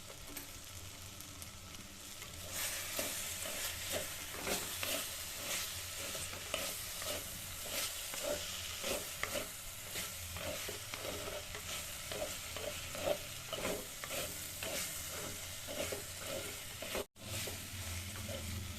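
Brinjal moju mixture with freshly added curry leaves sizzling in an oily pan while a spoon stirs it. The stirring strokes start a couple of seconds in at about two a second. The sound cuts out for an instant near the end.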